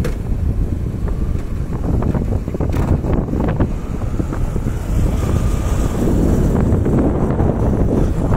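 Wind buffeting the microphone of a motorcycle rolling along a paved road, with a steady low rumble of wind and tyre noise and no clear engine note; the bike is coasting without its engine started. The rush grows a little louder about halfway through.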